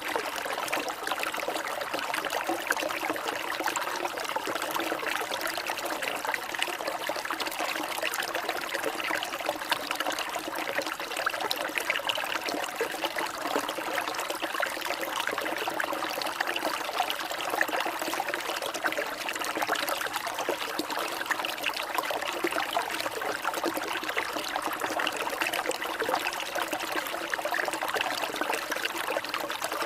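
Water trickling and splashing steadily, a continuous fine bubbling patter without pauses.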